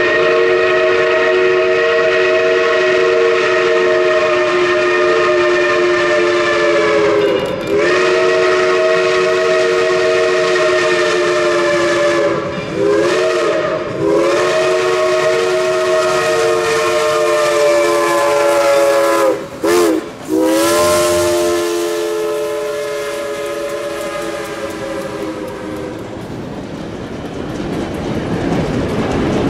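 Reading & Northern 425, a 1928 Baldwin 4-6-2 steam locomotive, blowing its home-built three-chime whistle for a grade crossing: long, long, short, long, the last long blast briefly broken and then held. Each blast swells up into its chord. Near the end the whistle stops and the passenger coaches are heard rolling past on the rails.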